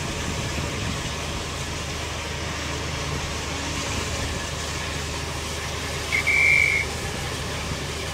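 Steam locomotive standing with a steady hiss of steam and a low hum, and a short, high-pitched whistle blast about six seconds in.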